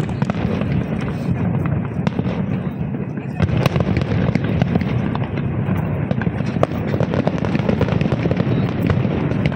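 Aerial fireworks bursting and crackling in a dense run of sharp pops, with a crowd's voices underneath.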